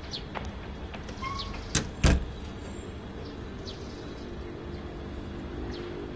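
Quiet town street ambience: a steady low background with scattered short chirps from small birds. Two sharp knocks about two seconds in are the loudest sounds.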